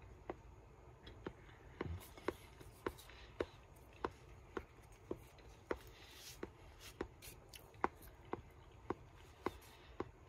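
A person chewing food with a faint, regular click about twice a second, one per chew, and a soft thump about two seconds in.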